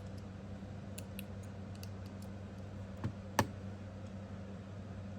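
Light clicks and taps of small metal fidget-slider parts being handled, with two sharper clicks a little past the middle.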